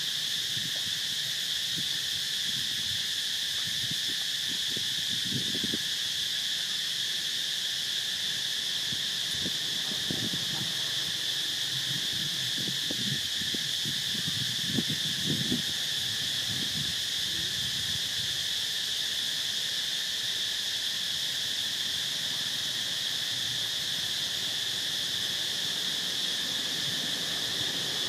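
Steady, high-pitched drone of an insect chorus. In the middle stretch there are faint, irregular low rumbles and knocks.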